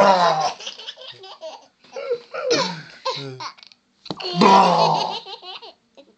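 Baby laughing in three bouts of giggles and belly laughs.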